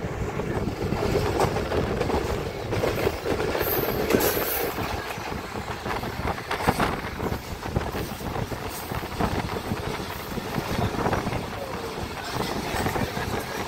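Passenger train coach running at speed, heard from aboard: a steady rumble of steel wheels on the track with many irregular clicks and knocks from the rail joints.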